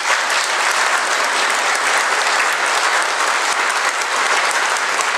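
Audience applauding, steady sustained clapping from a large seated crowd.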